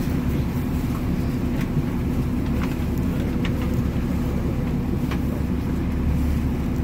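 New York MTA city bus heard from inside the cabin: a steady low engine drone with a held hum, and a few faint clicks or rattles.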